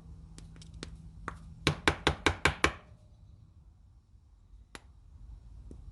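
A quick run of six sharp knocks, about five a second, with a few lighter clicks around them: a 1/4-inch ratchet being tapped down into its epoxy-filled wooden handle to seat it and work the trapped air out.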